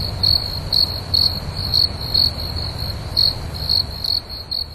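Crickets chirping: a steady high trill with louder chirps about twice a second, over a low rumble. It is the stock 'awkward silence' sound effect, edited in so that it cuts in and out abruptly.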